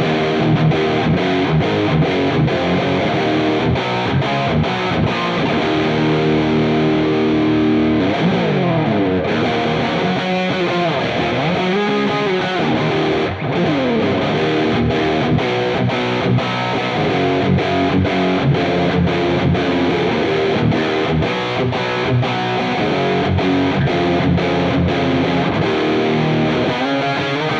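Electric guitar played through the NUX Cerberus multi-effects pedal's distortion channel, gain set halfway and tone turned full up, with reverb on: heavily distorted chords and riffs with pitch slides. A short break in the playing comes about 13 seconds in.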